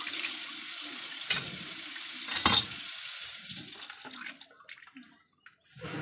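Kitchen tap running into a stainless steel sink while food is rinsed in a plastic bowl under it, with two knocks about a second apart, the second the loudest. The water cuts off about four seconds in.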